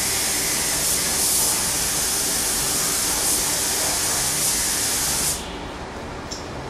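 Compressed-air paint spray gun with a gravity-feed cup hissing steadily as it sprays paint. The hiss cuts off suddenly about five seconds in when the trigger is released.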